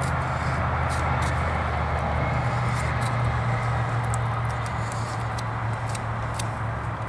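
A motor running steadily, heard as a low, even hum. Over it come light, scattered clicks and scrapes of a boning knife cutting along a snapping turtle's shell.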